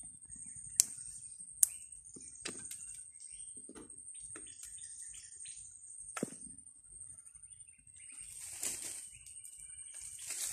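Sharp clicks, knocks and rustles as a lit bee smoker is tended and its burning fuel is poked with a stick, over a steady high-pitched tone. Two loud clicks come in the first two seconds, and a longer scuffling rush comes near the end.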